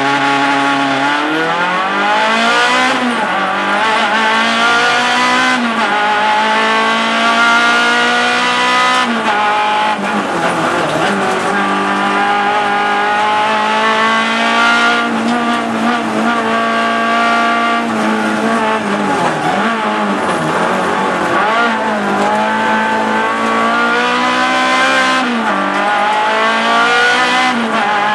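Renault Clio Sport race car engine heard from inside the cabin, accelerating hard off the start and revving up through the gears. The pitch climbs in repeated rising sweeps and drops back at each gear change. Deeper dips where the driver lifts and brakes for corners.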